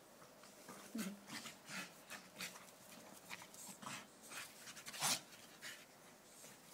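Two Staffordshire bull terriers play-wrestling, panting hard in quick, irregular breaths, the loudest about five seconds in.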